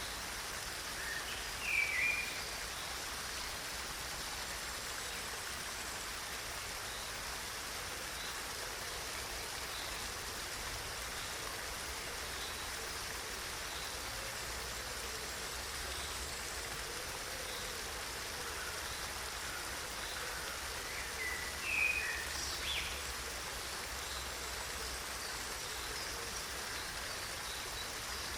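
Waterfall rushing with a steady, even roar of falling water. Brief high chirps stand out twice, once near the start and again about two-thirds of the way through.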